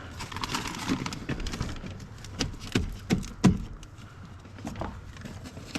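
Irregular knocks and clicks of a plastic interior door trim panel being handled and fitted against a truck's rear door, with a cluster of louder sharp knocks in the middle.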